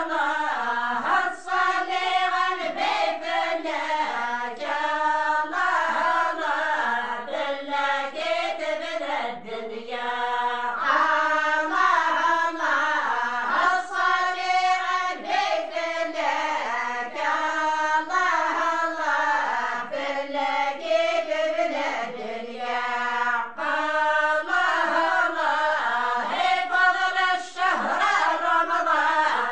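A group of women singing unaccompanied in chorus: Amazigh devotional praise songs (madih) for Ramadan, a chanted melody in phrases a few seconds long with short breaths between them.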